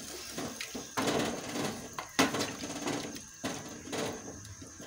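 Wooden spoon stirring chunks of butternut squash and carrot in coconut milk and water in a metal cooking pot, scraping and knocking against the pot in uneven strokes about once a second.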